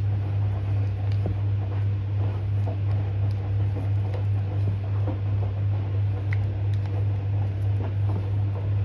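A steady low hum throughout, with faint scattered clicks and taps as chopped shallots are dropped by hand from a plastic bowl into a wooden mortar.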